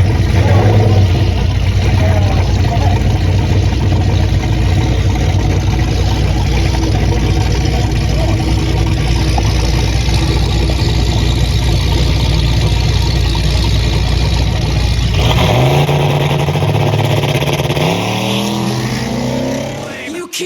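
A V8 car engine runs steadily under load. About 15 seconds in its note changes, and its pitch climbs steadily over the last few seconds as the car accelerates.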